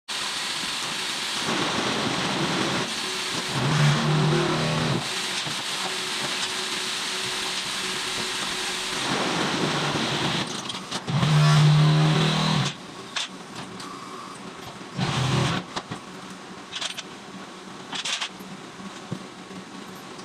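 Pallet feeder of a concrete block-making machine running: a steady machinery noise with two louder surges carrying a low hum, about four seconds in and again around eleven to twelve seconds. After that it drops quieter, with scattered short clanks and knocks.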